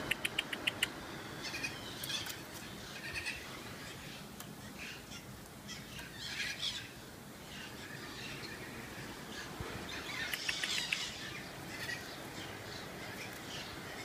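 White-throated magpie-jays calling: a quick run of clicks right at the start, then scattered short calls, the loudest about three-quarters of the way through.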